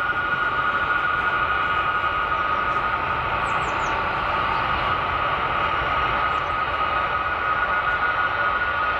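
Turbofan engines of a C-17 Globemaster III running steadily at ground idle: a constant high whine over a broad rushing noise.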